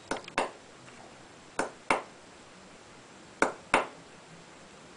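Claw hammer tapping a pointed metal tool held against a concrete block wall: six sharp metallic taps, in pairs about a third of a second apart, repeated three times. This is the light tapping that marks a starting dimple so the masonry drill bit won't walk.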